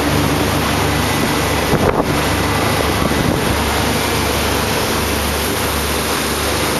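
Wind buffeting the microphone over the rush of water from a sailboat moving through the sea, with a brief knock about two seconds in.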